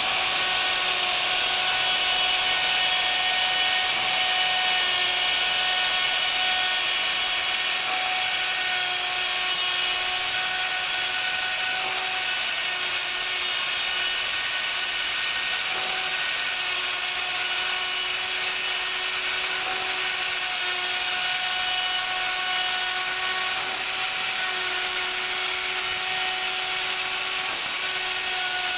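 Electric wood router running at speed with a steady high whine, its bit cutting away wood from a workpiece turning slowly on a lathe.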